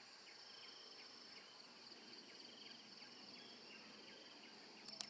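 Faint insect chorus: a steady high-pitched buzz with a rapidly repeated chirping beneath it, and one short click near the end.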